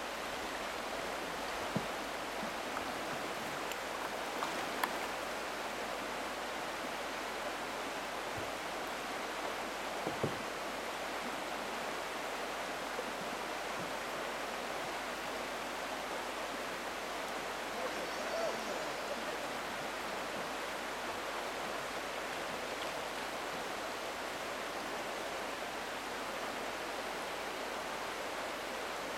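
Water rushing steadily over the rocks of a shallow Class II riffle, with a few faint knocks now and then.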